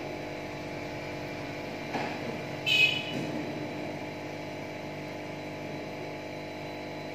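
Steady hum of an aquarium air pump driving the tank's bubbler. A brief, loud, high-pitched squeal cuts in a little under three seconds in.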